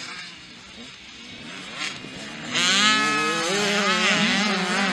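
Motocross bikes racing past close by, engines revving up and down with the throttle. The engine sound jumps much louder about two and a half seconds in.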